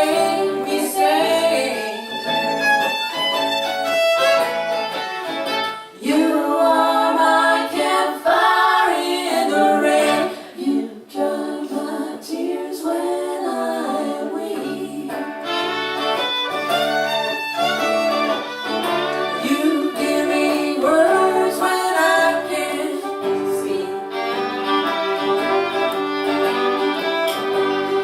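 Acoustic folk band playing, with a fiddle carrying the melody.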